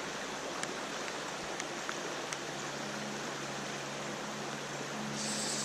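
Steady rush of a fast, shallow river riffle flowing past, with a few faint ticks.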